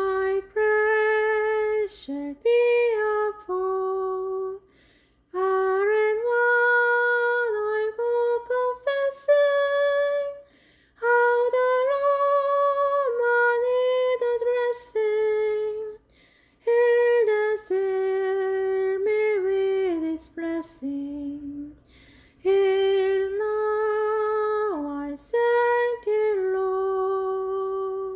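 A woman's solo voice singing a slow hymn melody unaccompanied, in long held notes grouped into phrases with short pauses between them.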